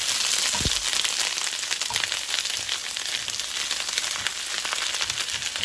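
Ginger-garlic paste frying in hot butter and oil with whole spices and cumin seeds, a steady dense sizzle full of small crackling pops as it is stirred with a silicone spatula. A low thump about half a second in.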